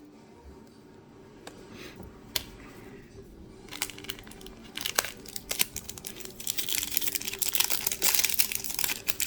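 Plastic wrapper of a football trading card pack crinkling as it is torn open by hand. There are a few faint clicks at first, then from about four seconds in a dense crackling that grows loudest near the end.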